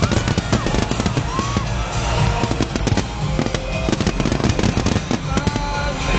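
Large fireworks display bursting in a rapid, continuous barrage of bangs and crackles, with music playing underneath.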